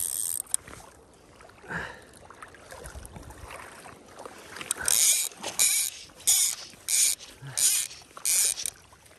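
A Hardy Perfect fly reel's click check ratcheting in six short, evenly spaced buzzes about two-thirds of a second apart, as line runs on or off the spool. A longer reel buzz cuts off just after the start.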